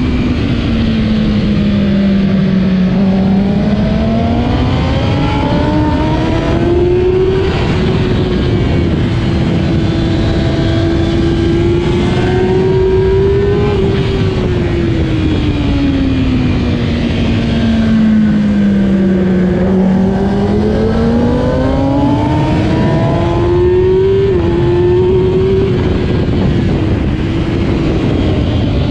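2008 Kawasaki ZX-10R's inline-four engine at race pace, over a constant rush of wind. Its revs fall into a corner about two seconds in and climb back up. They hold high, drop again over several seconds around the middle, then rise once more, with brief dips near the end.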